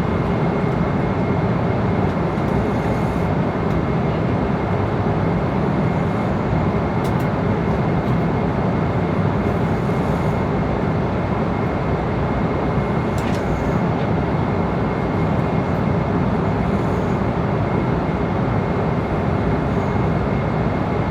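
Airliner cabin noise in flight at altitude: a steady, even rush of engine and airflow noise with a faint steady high tone, broken only by a couple of faint ticks.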